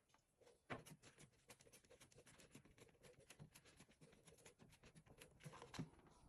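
Faint, irregular light clicks and rustles, several a second, starting about a second in: small handling noises.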